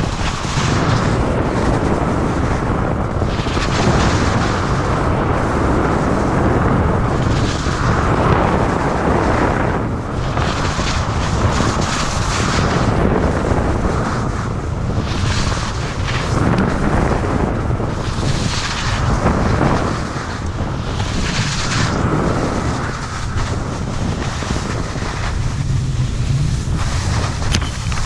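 Wind buffeting the microphone while skiing fast downhill, with the skis' edges scraping over packed snow in surges every two to three seconds as the skier turns.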